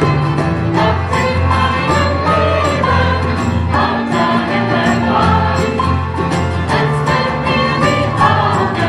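A small live band of acoustic guitars, violin and keyboard playing a song with a steady beat, while a group of voices sings along.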